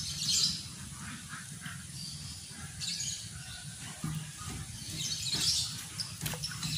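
Birds chirping a few times over a low steady hum.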